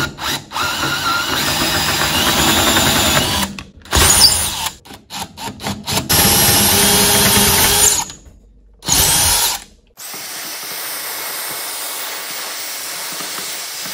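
Craftsman power drill boring 5/16-inch holes through a wooden workbench top over pilot holes, running in several bursts with stops and restarts. From about ten seconds in, a vacuum cleaner runs steadily, picking up the drill shavings.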